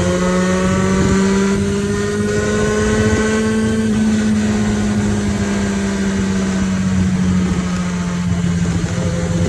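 Vehicle engine and road noise while driving: a steady drone, with a higher engine note rising slowly in pitch over the first four seconds, then holding.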